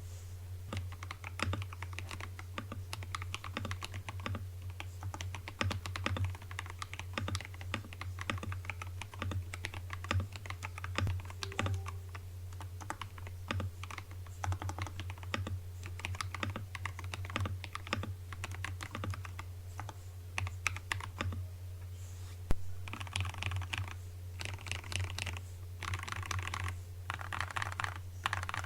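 Typing on a CIY Tester68 mechanical keyboard with lubed KTT Kang White linear switches, tape-modded and poly-filled: a continuous run of key clacks, with faster flurries of keystrokes near the end. A steady low hum lies underneath.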